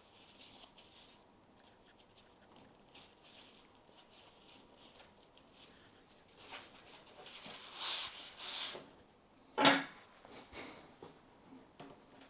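Faint rubbing and handling noises of water-cooling tubing and a fitting being worked by hand, with a denser rustling stretch around eight seconds in and one short, sharp, louder sound near ten seconds.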